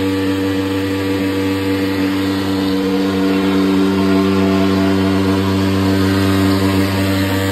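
Mosquito fogging machine running with a steady, loud, engine-like drone as it sprays anti-dengue smoke.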